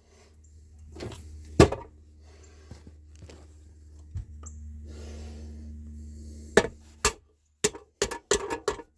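Sharp metallic knocks and clinks from tools worked against a steel electrical box, ending in a quick run of taps as a knockout is popped out to make a new hole. A low steady hum runs underneath and stops about seven seconds in.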